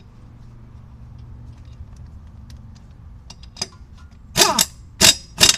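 A steady low hum under faint metallic clicks, then three short, loud bursts of noise in the last second and a half, the first with a falling whine inside it, as the air impact wrench and socket are handled at the wheel's lug nuts.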